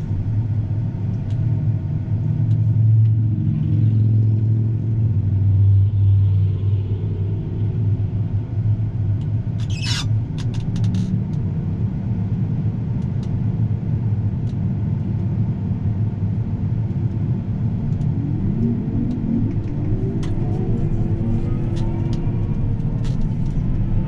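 John Deere S790 combine driving at road speed, heard inside the cab: a steady low drone of engine and road noise. A sharp click comes about ten seconds in, and a rising whine builds from about 18 seconds.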